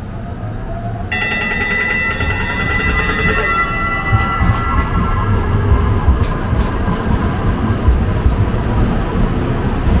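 A train running and gathering speed: a low rumble grows louder under a rising motor whine. About a second in, a bell-like chime sounds and fades over the next few seconds, followed by scattered clicks.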